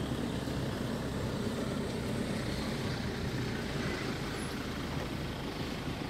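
A vehicle engine idling steadily, a low even rumble.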